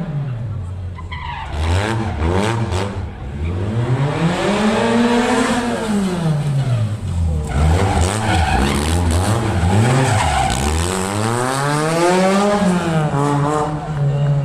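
A car engine revving hard, its pitch climbing and falling in long sweeps several times.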